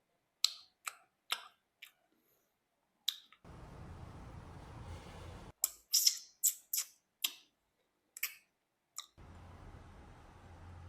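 Wet mouth clicks and lip smacks of someone chewing noisily with the mouth open, about a dozen sharp smacks in irregular bursts. Two stretches of steady low background noise cut in and out abruptly between them.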